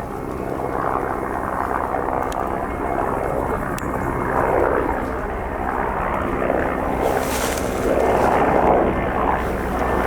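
Military helicopter flying over: a steady drone of engine and rotor that swells and eases several times.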